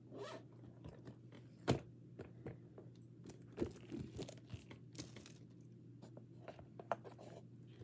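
Handling noise from a glittery case being turned over and its strap and flap pulled open: scattered light clicks, taps and crinkles, with one sharper knock a little under two seconds in.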